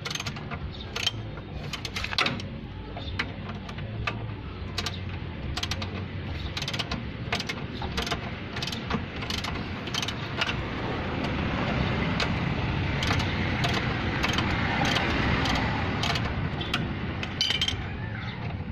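Hand ratchet wrench clicking over and over as it works a bolt at the bottom of a car's rear shock absorber, loosening it for removal.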